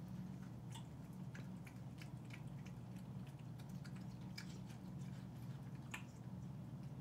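A cat chewing, with small irregular clicks of its teeth, over a steady low hum.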